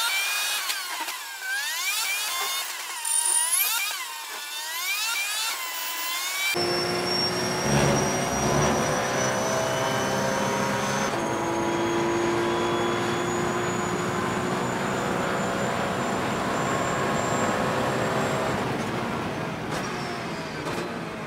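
Porsche 911 GT3 Cup's flat-six racing engine heard from the cockpit at full throttle, rising in pitch through several quick upshifts. About six seconds in, the sound changes abruptly to a fuller, steady high-revving drone that climbs slowly in pitch and eases off near the end.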